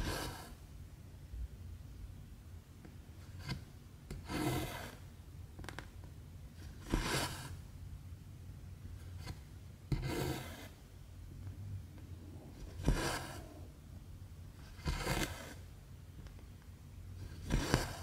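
Cotton embroidery thread drawn through 14-count cross-stitch fabric: a short rasping pull every two to three seconds, seven in all.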